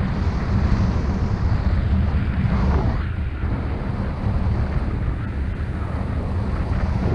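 Wind rushing over the microphone of a camera on a paraglider in flight, a steady, rumbling buffet of airflow.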